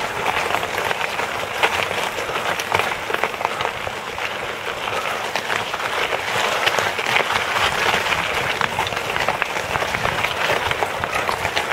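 Recumbent bike's tyres rolling over a loose gravel and rock track: a steady, dense crunching crackle of many small stone clicks.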